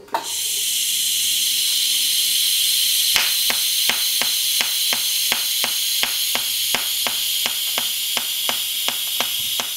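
TIG welding arc on stainless steel, fusion welding without filler, striking at the start and hissing steadily. The machine is in DC pulse mode, switching between peak and base amperage. From about three seconds in, a regular sharp ticking about three times a second runs over the hiss.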